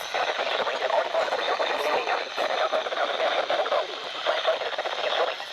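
Weather radio broadcast audio: a steady, hissing, band-limited signal carrying a voice too indistinct to make out.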